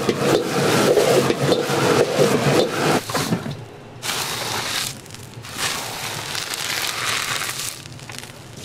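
Egg fried rice being stir-fried in a wok: a metal ladle repeatedly scrapes and tosses the rice over the wok burner's steady hum. About three seconds in the hum stops, and the rice is tipped and scraped out of the wok into a large stainless steel bowl.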